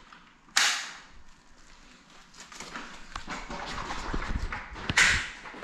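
Handling noise of a small drone being picked up by hand, its propellers not running: a sharp knock about half a second in, then scattered clicks and rubbing that grow louder, and another loud knock near the end.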